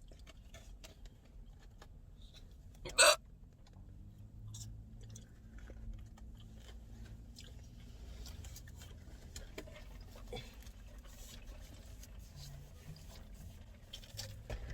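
A girl's loud, sharp hiccup about three seconds in, followed by quiet chewing with small mouth clicks while she eats.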